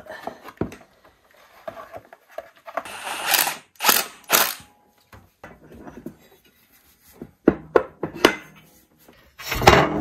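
Tools and metal parts being handled during work on an ATV's clutch housing: scattered clunks, knocks and clicks, with a few short rasping bursts about three to four and a half seconds in.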